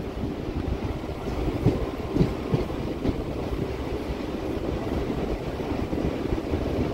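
Hyderabad MMTS suburban electric train running on the rails: a steady low rumble, with a few wheel clacks over the rail joints about two seconds in.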